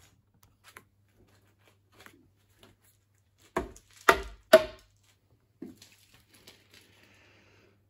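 Three sharp knocks about half a second apart, with lighter clicks and taps around them. They come from auxiliary lamps freshly mounted on a car's plastic grille being knocked and shaken to check how firmly they sit.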